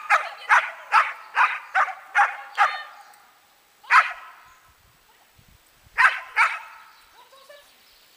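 A dog barking: a quick run of about seven sharp barks, about two a second, then a single bark, and two more in quick succession about two-thirds of the way through.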